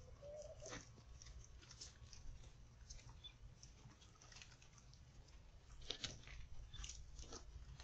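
Faint, irregular clicks and taps of impala hooves stepping on dry, hard ground, over a steady low background rumble.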